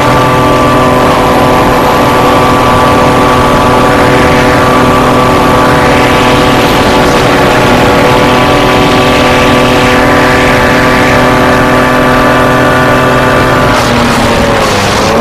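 Racing hovercraft's engine and propeller running at a steady high pitch, then dropping in pitch near the end as the throttle eases, and picking back up.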